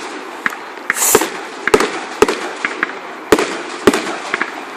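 Fireworks going off: about ten sharp, irregularly spaced bangs and cracks, with a brief hiss about a second in.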